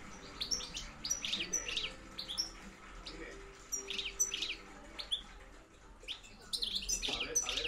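European goldfinch calling as a field-style call bird (reclamo campero): clusters of quick, high, twittering chirps and short song phrases, with a lull past the middle before the chirping picks up again near the end.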